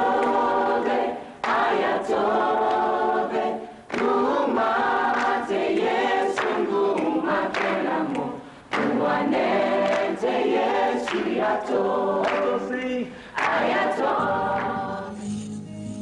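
A choir singing a cappella in several phrases with short breaks between them. The singing ends about a second before the end.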